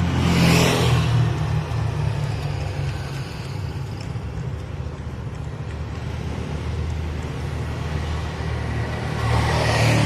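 Car engine running steadily, with a louder rushing swell about half a second in and another near the end.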